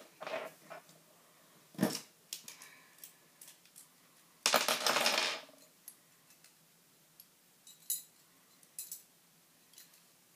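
Scattered metallic clicks and clinks of a metal Beyblade spinning top being picked up and handled, with a sharper clink about two seconds in and a short scraping noise around the middle.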